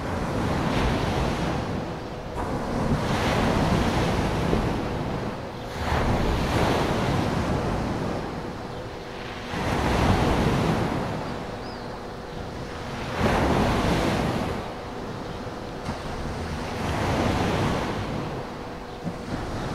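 Sea surf: waves washing in and drawing back, each surge swelling and fading about every three to four seconds.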